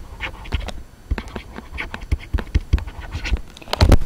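Handwriting with a stylus on a writing tablet: a run of short scratching strokes and taps as words are written out, loudest in a cluster near the end.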